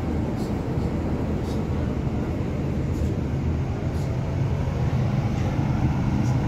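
Steady low rumble of a double-decker bus heard from inside on the upper deck, with a few faint rattling ticks; it grows slightly louder near the end.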